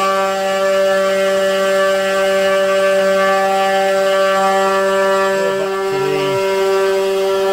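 Genmitsu CNC 4040 Pro's 500-watt spindle running at speed with a steady whine, its V-bit carving letters into plywood. Brief lower shifting tones come in about six seconds in.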